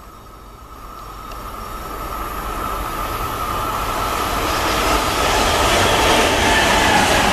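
Freight train hauled by a BB 27000-class electric locomotive drawing near, its running noise growing steadily louder, with a thin steady whine over it.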